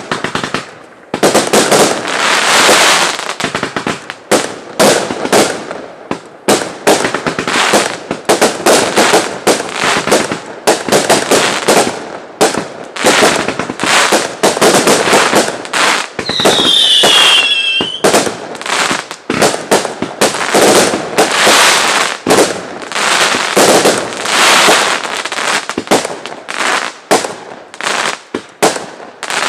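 Fireworks display: a rapid, nearly continuous barrage of bangs and crackling from aerial fireworks, starting about a second in. A short falling whistle cuts through about halfway.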